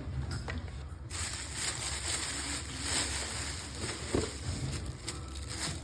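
Rustling and handling of a shoe box and its paper packing while it is opened: a steady rustle that starts suddenly about a second in, with a few light knocks.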